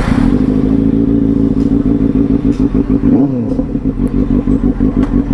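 Benelli 600i motorcycle's inline four-cylinder engine running just after starting, with a brief blip of the throttle about three seconds in.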